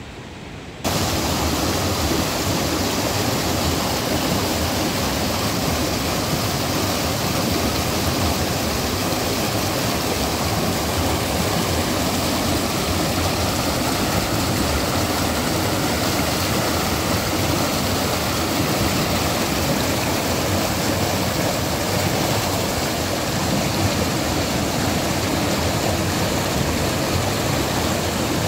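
Water rushing steadily over a river cascade, a dense even hiss. It comes in suddenly about a second in.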